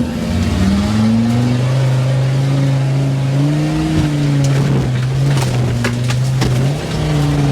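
Off-road 4x4 engine revving hard under load on a climb. Its pitch rises just before and stays high, wavering up and down, with a few sharp knocks in the middle.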